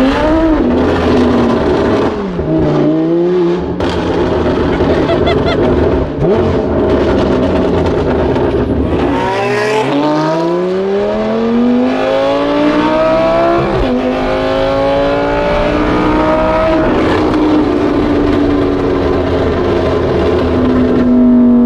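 Lamborghini Gallardo Super Trofeo Stradale's V10 through a straight exhaust, heard from inside the cabin. It revs up and shifts a couple of times early on, then pulls through a long rising rev in the middle and shifts again. Near the end it settles into a steady cruise, its pitch easing down slowly.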